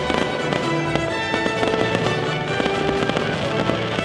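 Fireworks bursting in a rapid run of bangs and crackles, over continuous music.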